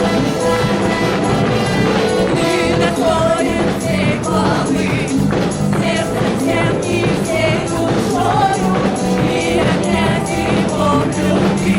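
Live church worship music: a group of voices singing over a band with a steady beat.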